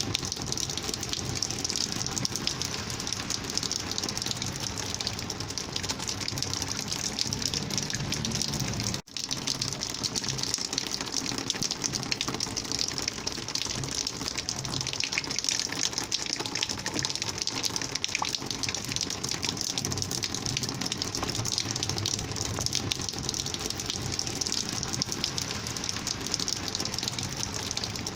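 Rainwater flowing and gushing steadily, with a momentary dropout about nine seconds in.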